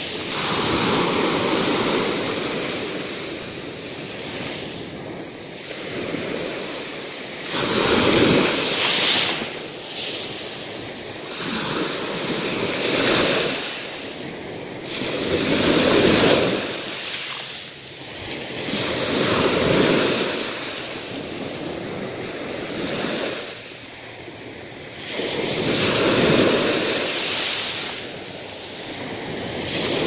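Sea waves breaking and washing up a pebble beach, the surf swelling and ebbing in surges every few seconds.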